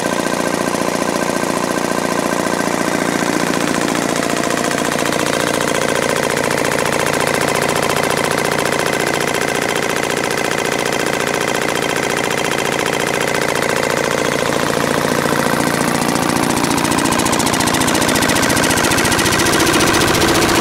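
Enfield MK1 HO100 air-cooled, horizontally opposed twin-cylinder 1135 cc diesel stationary engine running steadily with a fast, even diesel knock, a little louder near the end.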